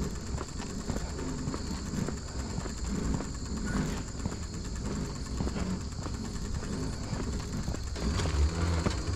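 Bicycle riding along the trail, with its rolling and rattling and wind rumbling on the microphone. A steady high insect chirring runs behind it.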